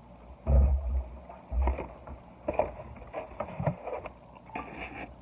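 Handling noise while eating: a paper napkin rustling and crumpling, with two heavy dull thumps in the first two seconds, then scattered lighter rustles and clicks.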